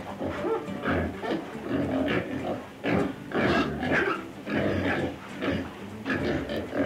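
Walrus calls: a run of short, rough calls following one after another at an uneven pace.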